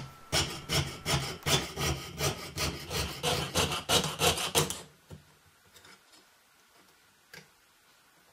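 Jeweller's saw cutting through 0.6 mm copper sheet on a wooden bench peg: quick, even strokes, about three a second, stopping about five seconds in. A few faint clicks follow as the cut pieces are handled.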